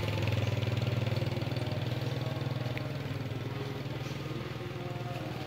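A motor vehicle's engine idling steadily, slowly getting quieter.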